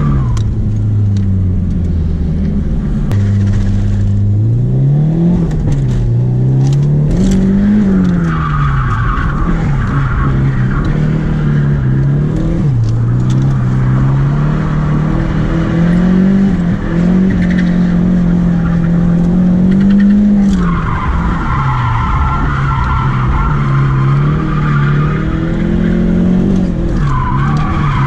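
Nissan S13's turbocharged SR20DET engine revving up and down as the car is drifted, heard from inside the cabin. Tyre squeal comes in several times over the engine, the longest stretch about two-thirds of the way through.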